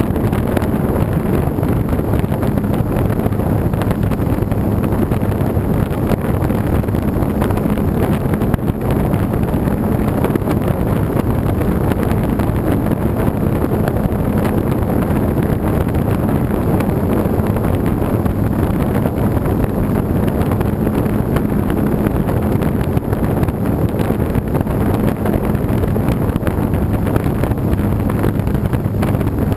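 Radio-controlled model airplane's motor and propeller running at a steady hum in flight, heard from on board, with heavy wind rushing over the microphone.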